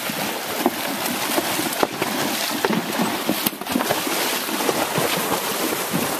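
Horses wading through a shallow creek: steady rough rushing and splashing of water, broken by many small knocks, with wind buffeting the microphone.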